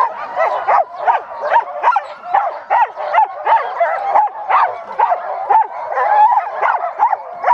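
A team of harnessed sled dogs barking, yipping and whining all at once, several calls a second with no break, the pre-launch clamour of dogs eager to run while the sled is still held.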